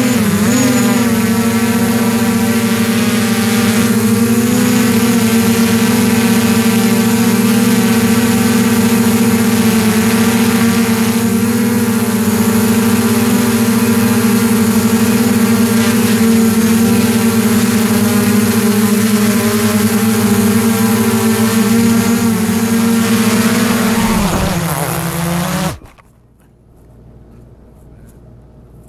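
DJI Mavic quadcopter's propellers and motors running with a loud, steady hum, wavering in pitch briefly at the start. Near the end the pitch falls as the motors spin down and stop abruptly.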